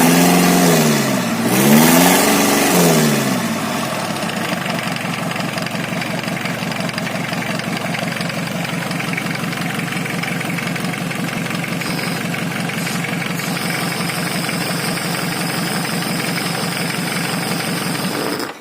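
Truck engine blipped twice near the start, then idling steadily with a rough, even clatter. The abnormal noise comes from the engine running without all of its components fitted.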